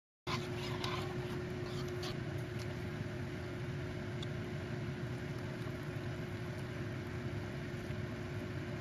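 Spicy broth at a rolling boil in a wok, a steady bubbling noise under a constant low hum. A few light clicks come in the first couple of seconds and one more about four seconds in, as chopsticks and beef slices go into the pot.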